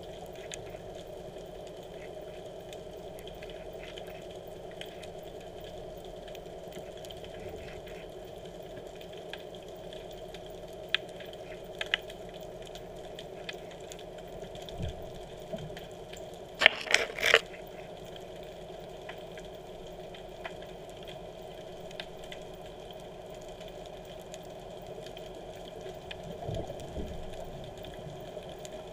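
Underwater sound picked up by a camera in harbour water: a steady muffled hum with a few fixed pitches, and scattered sharp clicks. About two-thirds of the way through comes a short, loud cluster of crackles, with a couple of low dull thumps around it and near the end.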